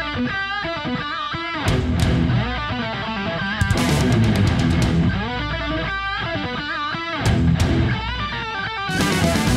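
Background rock music led by electric guitar.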